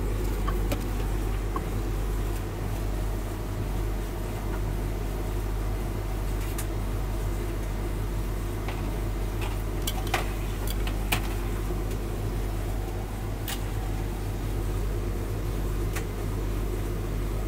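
Hotpoint tumble dryer running a load on high heat: a steady hum of the motor, fan and turning drum, with a few light clicks along the way.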